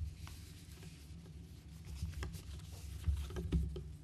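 Paper sheets being handled and turned at a lectern, rustling and crackling close to the microphone, with two dull bumps about three seconds in.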